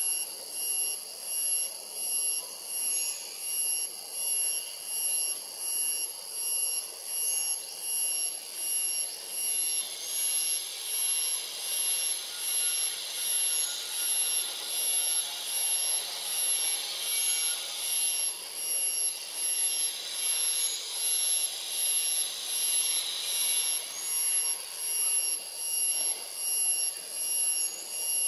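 Forest insect chorus: a high-pitched drone that pulses a little over once a second, with a hissier layer joining in for a stretch through the middle.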